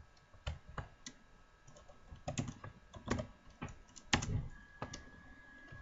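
Keystrokes on a computer keyboard: about a dozen separate key clicks at an irregular typing pace. A faint steady high whine sits underneath.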